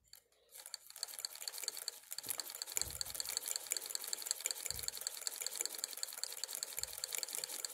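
Cast-iron Singer Model 20 hand-crank chain-stitch sewing machine stitching through thick cross-stitch fabric. It makes a rapid, even clicking that starts about half a second in.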